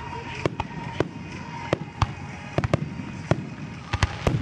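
Fireworks display: aerial shells bursting in an irregular run of sharp bangs, about a dozen, coming closer together near the end.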